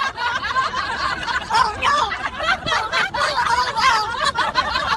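Continuous high-pitched laughter.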